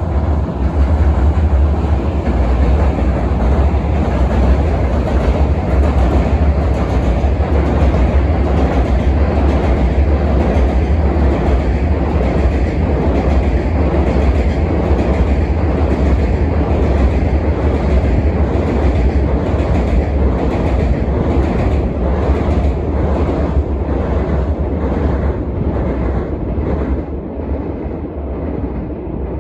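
A long freight train passing close by, its wheels clacking over the rail joints in a steady rhythm of about one and a half clicks a second over a heavy rumble. It eases off slightly near the end.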